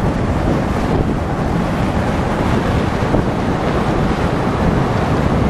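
Wind rushing over the open top of a 1957 Buick Roadmaster convertible at road speed, buffeting the microphone in a steady low rumble, with road noise underneath.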